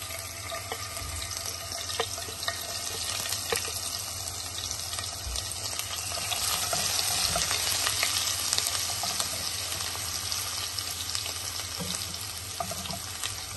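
Chopped garlic and ginger sizzling in hot oil with cumin seeds, stirred with a spatula; the hiss swells a little toward the middle, with scattered light taps of the spatula on the pan.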